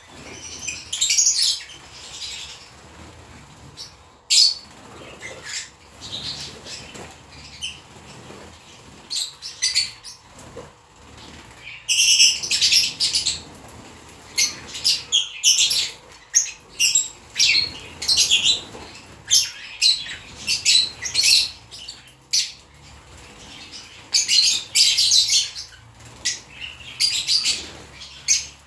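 A flock of lovebirds chattering in rapid, shrill chirps and squeaks in irregular bursts, busiest in the second half, with flutters of wings among them as birds gather at the food dish.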